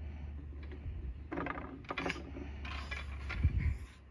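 Wooden beads and parts of a child's wooden activity cube clicking and clacking as a baby plays with the bead maze, with a duller knock near the end.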